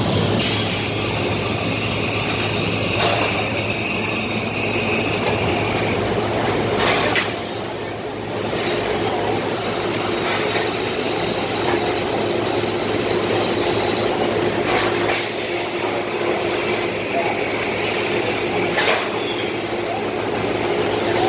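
Machinery running steadily: a continuous mechanical noise with several high, steady whining tones over a low hum. It drops briefly about a third of the way in, then resumes, with a lower whine joining about halfway through.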